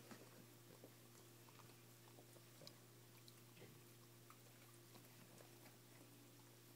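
Near silence: faint, scattered small clicks and nibbling as a dog noses and bites at an orange, over a low steady hum.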